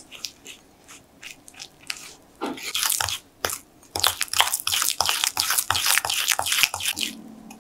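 Metal spoon stirring powdered sugar and lemon juice into a thick icing in a small glass bowl: quick scraping clicks of the spoon against the glass, sparse at first, then coming thick and fast from about two and a half seconds in.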